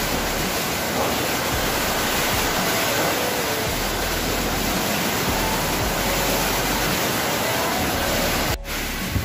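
Heavy typhoon rain and wind: a steady, loud, even rushing noise, broken off briefly near the end.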